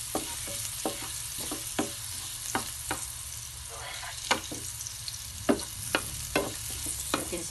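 Minced garlic sizzling in oil in a nonstick frying pan, being fried toward golden brown. A wooden spatula stirs it, knocking and scraping against the pan in irregular clicks about twice a second.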